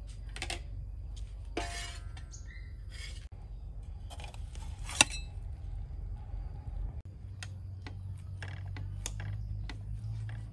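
Kitchenware being handled: a string of short clinks and knocks of metal pots, plates and utensils, with one sharp ringing clink about halfway through, over a steady low rumble.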